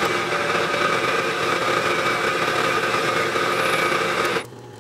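Bridgeport vertical milling machine running, its cutter milling a slot in a part, heard sped up five times as a steady mechanical whine with several held tones. It cuts off suddenly near the end, leaving a quieter hum.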